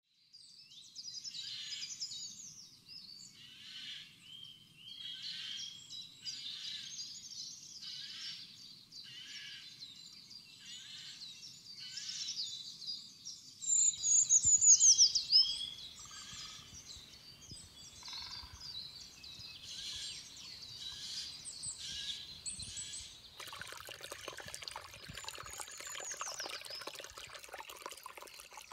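Songbirds singing, short high phrases repeated about once a second, louder and closer for a couple of seconds around the middle. About five seconds before the end a shallow brook starts trickling over fallen leaves, with the birds still singing over it.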